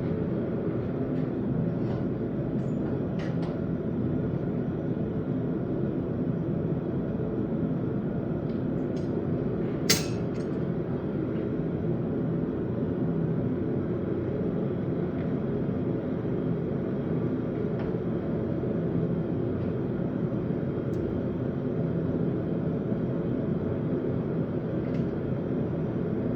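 A blacksmith's forge running with a steady low noise. A single sharp click comes about ten seconds in.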